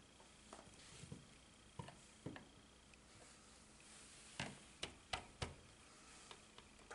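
Faint small clicks and ticks of a screwdriver turning the screws of a metal-box receptacle cover plate, with a few sharper clicks about two-thirds of the way through.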